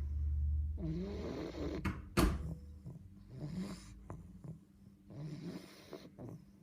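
English bulldog puppy snoring in its sleep, several snoring breaths that grow softer after the first couple of seconds. A single sharp knock about two seconds in.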